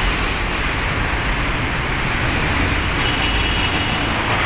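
Steady city road traffic: cars, vans, trucks and a motorcycle driving past, a continuous wash of engine and tyre noise.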